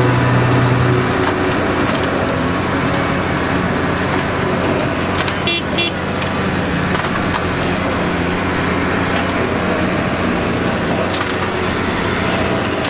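New Holland T6030 tractor's diesel engine running steadily as the tractor moves off slowly, with a brief high chirp about five and a half seconds in.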